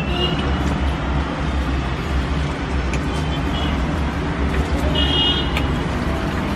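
Steady low rumble of city road traffic, with a few short high-pitched toots, the loudest about five seconds in.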